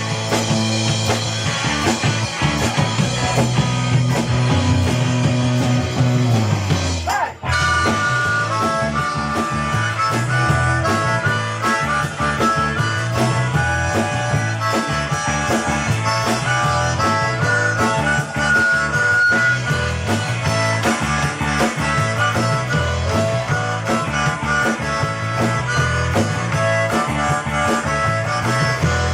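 Live rock band playing, with a harmonica carrying the lead over a steady bass and drum groove. The music drops out briefly about seven seconds in, then carries on.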